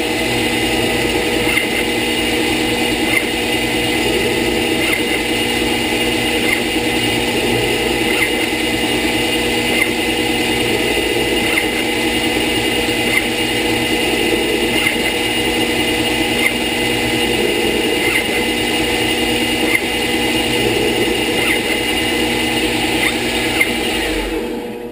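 Wabeco D2000 CNC-converted lathe running a G76 threading cycle on aluminium: a steady machine drone and whine with a light tick repeating about every second and a half. The sound stops abruptly near the end.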